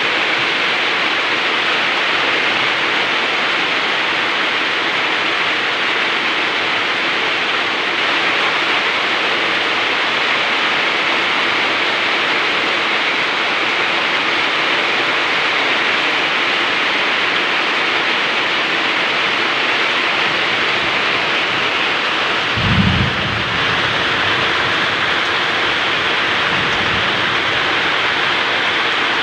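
Steady, heavy rainfall hissing evenly, with one brief low rumble of thunder about three quarters of the way through.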